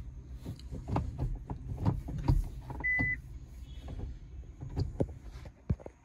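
Manual gear lever of a Hyundai Grand i10, fitted with a metal Sparco knob, being shifted through its gates: a run of clicks and knocks. One short beep sounds about three seconds in, over a steady low hum.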